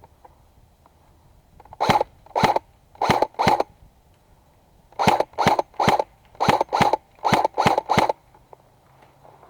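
Airsoft gun firing single shots, twelve sharp pops in all: four in about two seconds, a short pause, then eight more in quicker succession.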